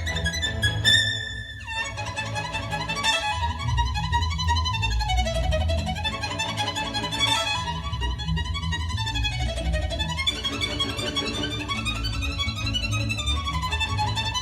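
A bowed string instrument playing a melody with notes that slide down and up in pitch, over a steady low hum.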